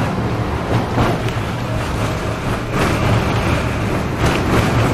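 Interior noise of a moving tram: a steady low hum and rumble of the car running along the rails, with a few separate clacks and knocks, the loudest about one, three and four seconds in.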